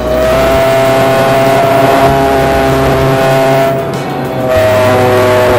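Electric motor and five-blade propeller of an E-flite Spitfire Mk XIV RC plane running under power: one steady, high-pitched whine.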